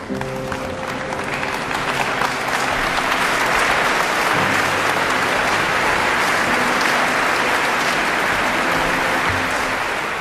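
Audience applauding, building over the first few seconds and tapering off near the end, over soft background music with sustained low notes.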